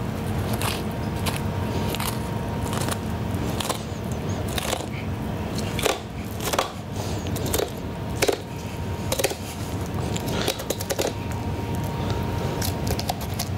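Irregular short clicks and scrapes of a knife cutting along the backbone of a wild boar saddle, over a steady background hum.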